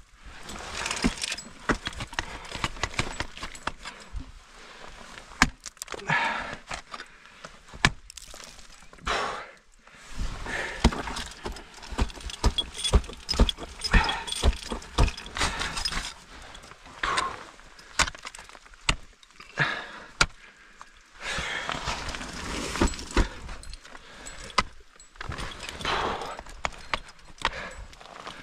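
Ice axes and crampons striking into water ice in irregular sharp blows, with metal climbing gear jangling and bursts of scraping between the strikes.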